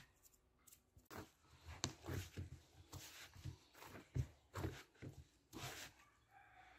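A hand kneading soft, wet dough in a plastic bowl: irregular squelching and slapping strokes, about two a second, with dull knocks of the bowl. The strokes start about a second in and fade near the end.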